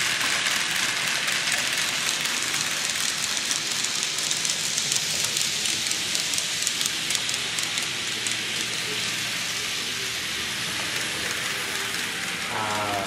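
HOn3-scale Blackstone model diesel locomotive running on the layout track: a steady hiss with a rapid, fine clicking through the middle seconds. A short wavering tone sounds near the end.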